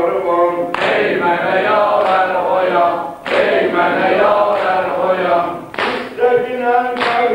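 Men's voices chanting a Shia Muharram mourning elegy (mərsiyə) together in a slow, wavering unison, kept to a beat of sharp strikes about once every second and a quarter.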